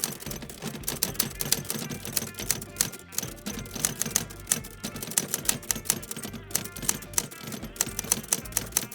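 Rapid, irregular clacking of typewriter keys, several strikes a second, with a few short pauses.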